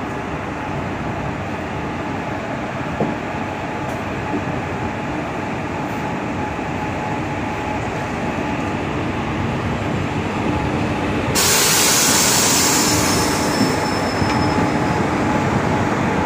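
Indian Railways WAP-4 electric locomotive and its passenger coaches departing past at close range, with a steady rumble of wheels on the track. About eleven seconds in, a loud hiss starts suddenly and fades over a couple of seconds.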